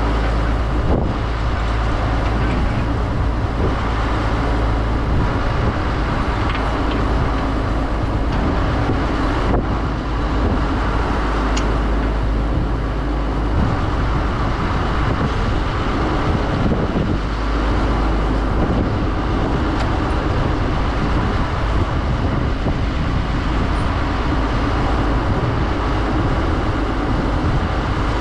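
Ruston-Bucyrus 22RB dragline's engine running steadily with a deep, constant rumble, its note shifting a little about halfway through as the boom is raised and the bucket is hoisted on its cables.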